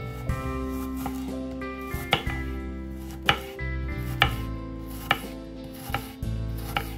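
Kitchen knife chopping food on a cutting board in single strokes, about one a second, a few of them sharper and louder, with soft background music underneath.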